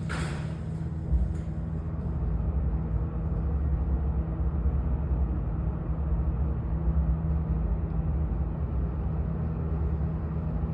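Elevator cab travelling between floors: a steady low rumble and hum inside the car, with a thump about a second in as it gets under way.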